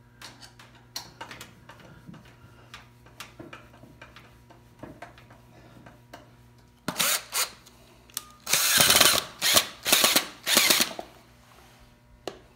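Makita cordless drill-driver running in short bursts: one brief burst about seven seconds in, then several louder bursts between about eight and a half and eleven seconds. Before that, light clicks and knocks of wood and tools being handled on the workbench.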